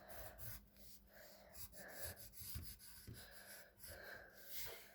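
Faint graphite pencil strokes on paper, a series of short soft scratches as a drawing is reworked, with soft breathing close to the microphone.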